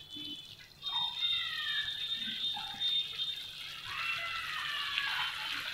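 Thick masala gravy bubbling in a frying pan and being stirred with a wooden spatula, cooked down to the stage where the oil starts to separate. Over it come high wavering tones that slowly fall in pitch, loudest about four seconds in.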